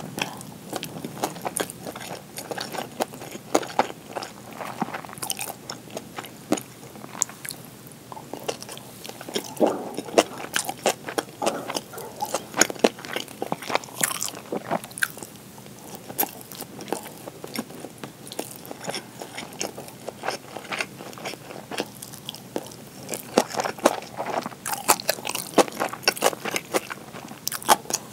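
Close-miked eating: biting and chewing pan-fried gyoza, tuna kimchi and rice, an irregular run of sharp, crunchy clicks.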